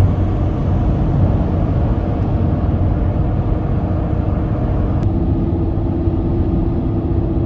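Steady vehicle drone, as heard inside a car, with low road and engine noise; a faint tone in it shifts about five seconds in.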